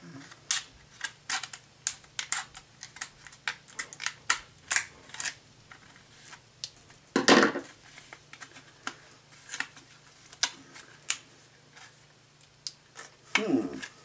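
Scissors snipping through a hard clear-plastic clamshell package: a run of sharp, irregular clicks, several a second at first and sparser later, with one louder, longer crackle of the plastic about seven seconds in.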